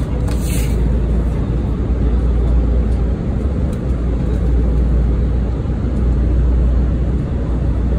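Steady cabin noise of a British Airways Airbus A320, a deep even rumble from the engines and airflow. A brief paper rustle comes about half a second in as the menu card is opened.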